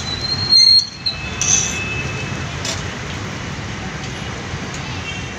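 Steady rumbling street noise around a roadside food stall, with a short loud clatter about half a second in and a thin high tone during the first second.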